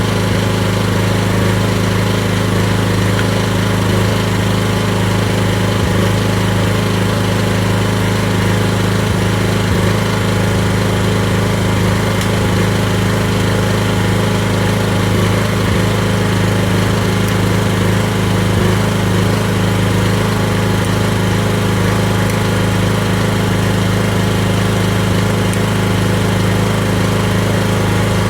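Briggs and Stratton generator's small petrol engine running at a steady speed with an even, unchanging hum while it produces power.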